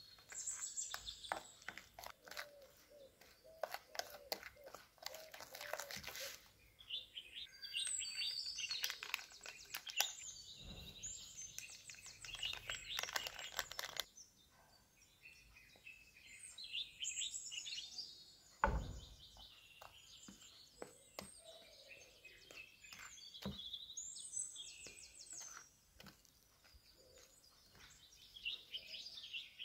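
Birds chirping in the background while a wooden spoon stirs and scrapes wet dough in a ceramic bowl, with a single low thump about two-thirds of the way through.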